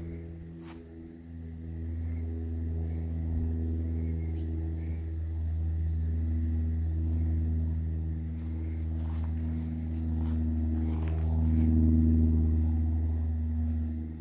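A steady, low engine-like drone with a hum, swelling louder near the end before easing off.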